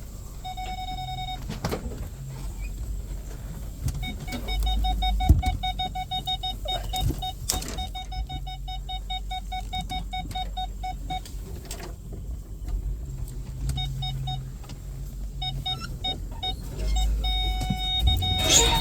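A utility vehicle's electronic warning beeper sounds over its low-running engine while the vehicle is being turned around. It gives a short steady tone, then rapid pulsed beeps for several seconds, more pulses, and a steady tone again near the end. A couple of knocks come from the vehicle about five and seven seconds in.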